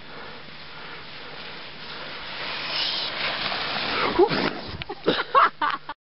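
A person sliding down a packed snow chute: a scraping hiss of snow against clothing that swells and grows louder over the first few seconds. In the last couple of seconds it breaks into short, uneven scuffs and thumps mixed with brief voice sounds.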